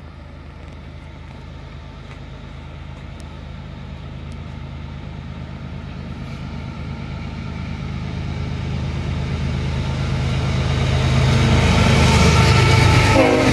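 Diesel locomotives at the head of a BNSF coal train approaching, their engines giving a deep, steady rumble that grows steadily louder as they come closer.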